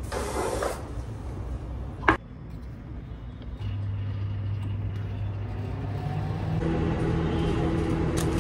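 A sharp click about two seconds in, then a countertop microwave oven switched on by its timer dial and running with a steady low hum, a second, higher hum joining near the end.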